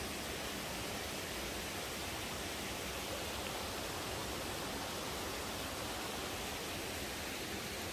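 Steady rushing of river water in a gorge: an even hiss that does not change.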